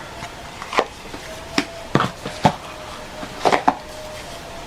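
Irregular sharp clicks and taps, about six, from small plastic false-eyelash cases being handled.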